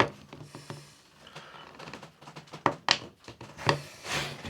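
A car trim tool prying and scraping at the seam of a tablet's plastic case, with a few sharp clicks, one right at the start and a quick pair about three seconds in. The tool is too thick to get into the seam.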